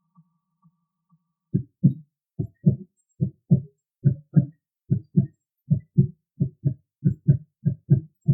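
Heartbeat sound effect: low paired lub-dub thumps, a little over one beat a second and quickening slightly, starting about a second and a half in after a few faint beats.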